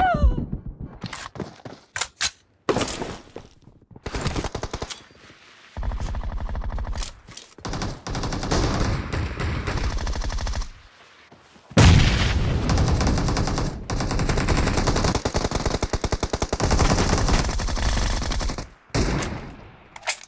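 Video-game automatic gunfire: long bursts of rapid machine-gun fire broken by short pauses, with the loudest burst starting about twelve seconds in.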